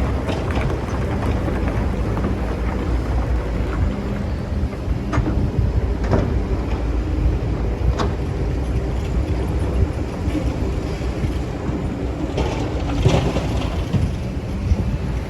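Excavator engine running steadily while digging, a dense low rumble with a few sharp knocks scattered through it.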